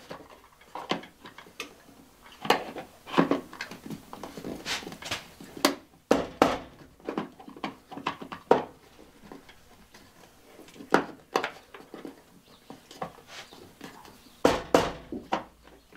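Irregular clicks, taps and knocks as a small Weboost cell signal booster unit is pushed and worked against its wall mount overhead. It does not want to seat on the mount.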